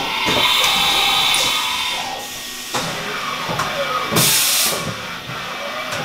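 Haas VF-2 Super Speed vertical machining center moving its axes, its servo drives whining up and down in pitch with each traverse. There is a steady hiss early on, and a short, loud burst of hiss about four seconds in.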